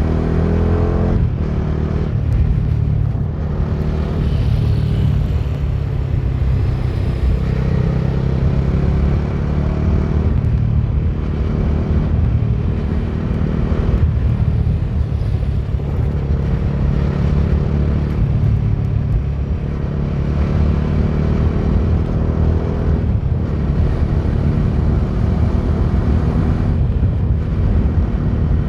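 Bajaj Dominar 250's single-cylinder engine running under way, its revs rising and falling, with brief dips in engine note every few seconds.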